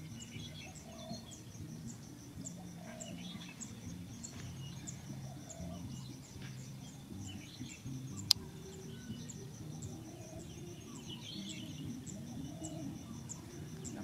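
Insects chirping in a steady, even pulse of about two to three chirps a second, with scattered bird chirps and short low bird calls repeating every second or two. A single sharp click sounds about eight seconds in.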